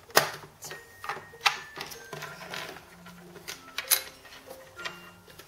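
Plastic clicks and knocks of a toy stamp set being handled as stamps are set and pressed: a sharp knock just after the start, more near one and a half and four seconds in, with softer clicks between.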